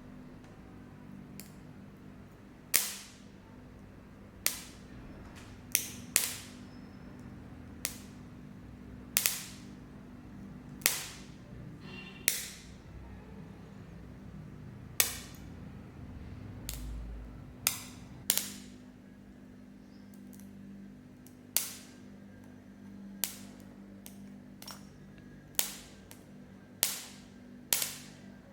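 Homemade capacitor spot welder discharging through its electrodes: a series of sharp snapping cracks at uneven intervals, roughly one every one to two seconds, over a low steady hum.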